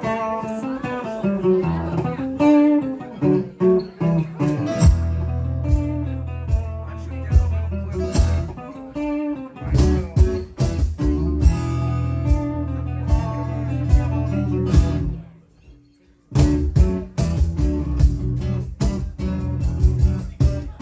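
Live unplugged band playing an instrumental guitar passage, with picked notes and strums. The playing drops out briefly about three-quarters of the way through, then comes back in.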